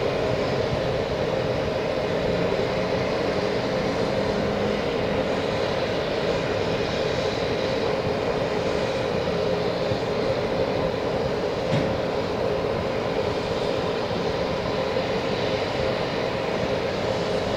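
Steady airport-apron machine hum with a faint whine, from ground equipment around a parked BAe 146-200 before its engines are started; it stays even throughout with no spool-up, and there is one faint knock about twelve seconds in.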